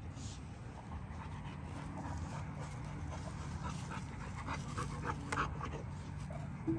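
American Bully dog panting with quick, short, repeated breaths, strongest in the second half. There is a brief low sound near the end.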